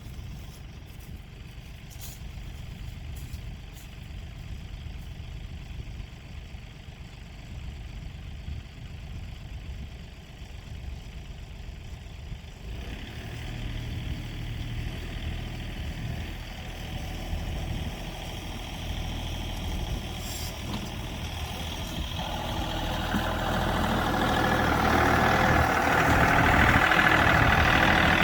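Diesel tractor engine running steadily, working harder about halfway through and growing louder near the end.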